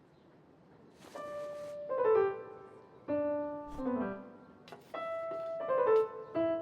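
Cartoon background music on a piano-like keyboard, starting about a second in: short phrases of notes stepping downward, with a few brief hissy swishes between the phrases.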